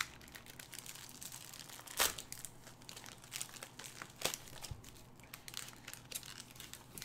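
Foil booster-pack wrappers crinkling faintly as the packs are handled and laid out one by one, with two sharper taps, about two and four seconds in.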